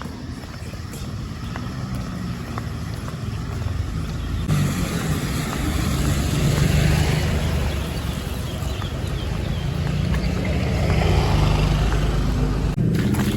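A motor engine running steadily under a rushing noise that grows louder about four seconds in.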